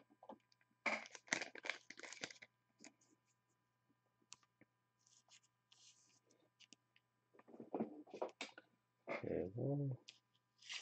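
A trading card being slid into a soft plastic sleeve and then a rigid plastic toploader: light plastic crinkling and small clicks in two spells. Near the end comes a brief low hum of a voice.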